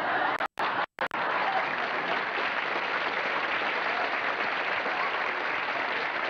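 Studio audience applauding steadily, with two brief gaps where the sound cuts out completely about half a second and one second in.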